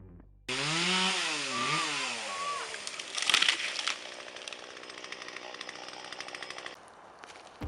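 Chainsaw revving up and down, then biting into the tree trunk to cut a felling notch, with louder cutting bursts about three seconds in. It runs on more steadily before dropping away near the end.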